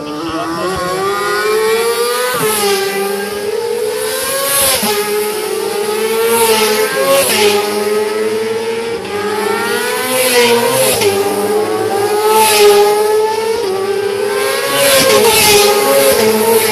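Racing sport motorcycle engine at full throttle, its pitch climbing and then dropping sharply at each upshift, about every two to three seconds, growing louder as the bike approaches.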